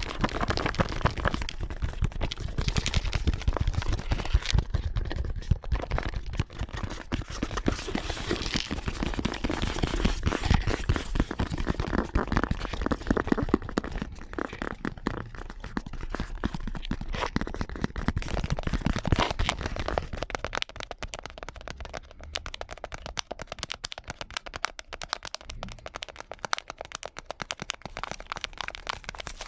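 ASMR tapping: rapid, overlapping taps on objects, several tapping clips layered over one another. The tapping thins out and gets quieter about twenty seconds in.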